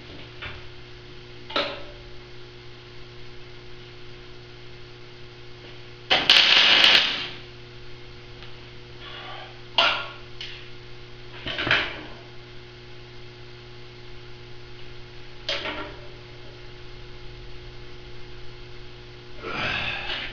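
Scattered short clanks and knocks of tools and steel parts being handled on a welded steel frame, over a steady electrical hum. About six seconds in comes a louder, noisy sound lasting about a second.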